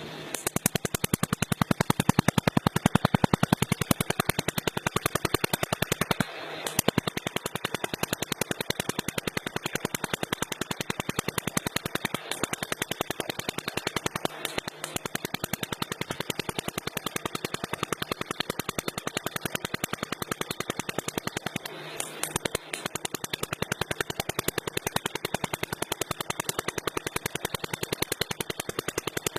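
Welding arc crackling in a rapid, even rattle of sharp clicks, breaking off briefly and striking again about six, twelve, fourteen and twenty-two seconds in.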